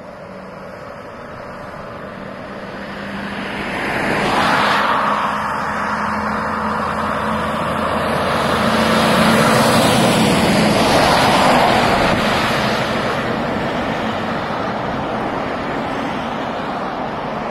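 Heavy lorry and its multi-axle low-loader trailer passing on the road, with diesel engine and tyre noise building up, loudest around ten seconds in, then fading as it moves away. Another vehicle passes about four seconds in.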